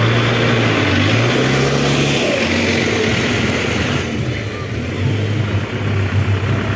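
Vehicle engine running, heard from inside the cabin, its note rising a little about two seconds in and then settling. A steady hiss under it thins out about four seconds in.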